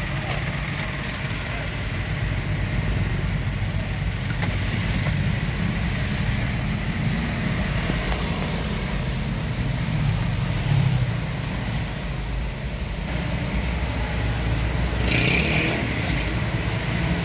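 Motor vehicle engine running steadily in slow traffic, a continuous low rumble, with a short hiss near the end.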